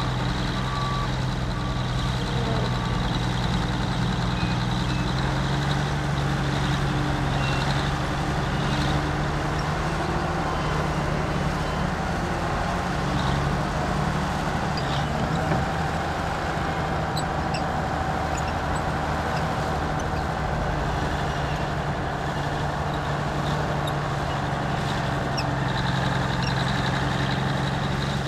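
Heavy diesel engines of earthmoving machinery running steadily, with a reversing alarm beeping briefly at the start.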